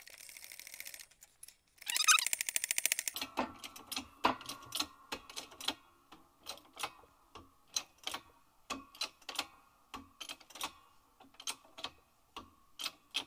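Hydraulic shop press being worked by its handle. It starts with two short runs of rapid ratcheting clicks, then goes on with uneven metallic clicks and ticks, roughly two a second, as the reverse gear is pressed back onto the outboard lower unit's bearing carrier.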